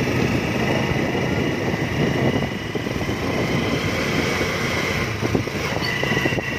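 Motorcycle tricycle (motorcycle with sidecar) engine running steadily while being ridden, mixed with rumbling wind noise.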